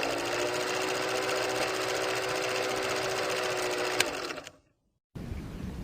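Steady, fast mechanical whirring and rattling with a hum, ending about four and a half seconds in after a sharp click. A different, rougher noise starts near the end.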